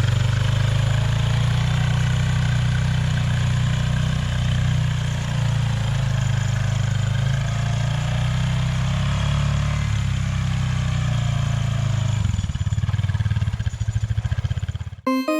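Honda Pioneer 500 side-by-side's engine running steadily on a ride. About twelve seconds in it drops to a slower, pulsing beat. It cuts off suddenly near the end as keyboard music starts.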